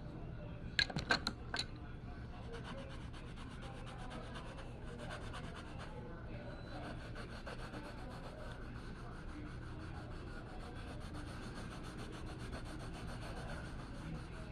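Rapid, steady scratchy rubbing strokes of a drawing tool working over the artwork, with four sharp clicks about a second in.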